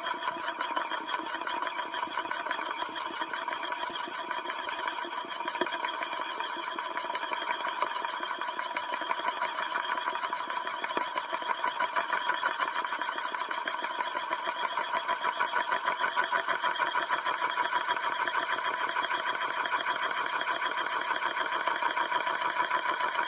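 Rotation sound effect: a mechanism spinning with a steady whir and a rapid, even pulse, growing somewhat louder and more strongly pulsed about halfway through.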